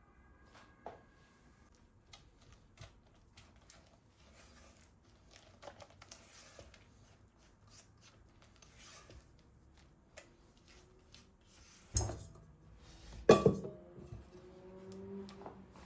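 Quiet kitchen handling: soft rustles and light taps, then two louder clattering knocks of kitchenware near the end.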